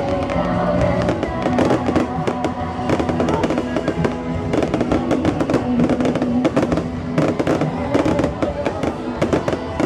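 Fireworks going off in rapid, irregular succession, many bangs and crackles overlapping, with music playing underneath.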